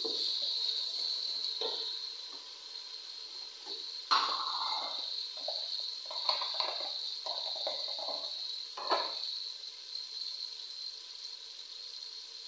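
Chopped tomatoes frying in oil in an aluminium pot, giving a steady sizzle, with a few short knocks and clatters of utensils against the pot, most around the middle.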